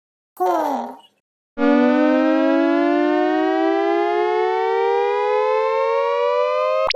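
Animated cartoon sound effect: a short falling tone, then a long siren-like buzzy tone that rises slowly in pitch for about five seconds and cuts off with a sudden upward sweep.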